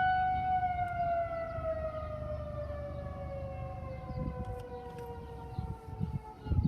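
Outdoor tornado warning siren winding down: its tone holds steady for about half a second, then slides slowly lower in pitch and fades over the next six seconds.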